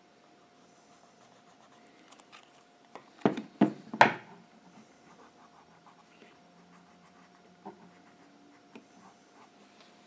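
White marking pencil scratched across leather: three loud, quick strokes a little over three seconds in, then faint rubbing and small ticks as the leather is handled, over a faint steady hum.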